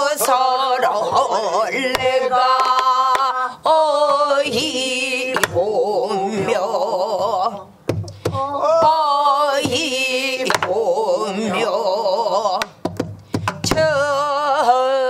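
Pansori singing: short sung phrases with a wide, wavering vibrato, broken by brief pauses, with a few single strokes on a buk barrel drum.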